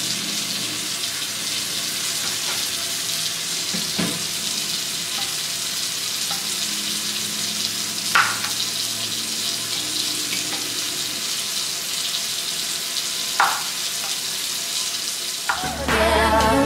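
A chef's knife chopping through broccoli stalks onto a bamboo cutting board: a few separate thunks, the clearest about eight seconds in and another near thirteen seconds, over a steady hiss.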